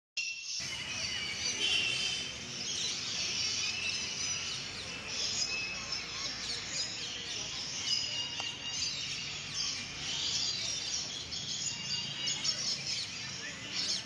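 A dense chorus of many birds chirping and whistling at once, the calls overlapping continuously, over a low steady background rumble.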